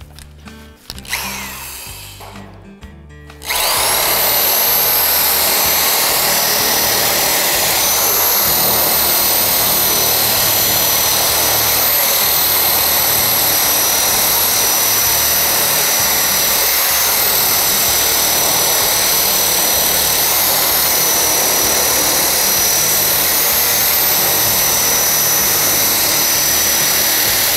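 A power tool running steadily as it rips a steel siding panel lengthwise. It starts about three and a half seconds in: a loud, even hiss with a high whine on top. Background music plays underneath.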